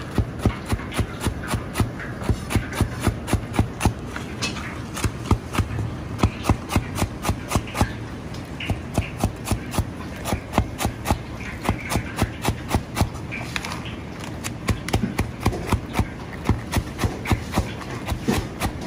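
Chinese cleaver chopping green onion on a cutting board: quick, even knocks of the blade on the board at about five a second, in runs broken by short pauses. A steady low hum runs underneath.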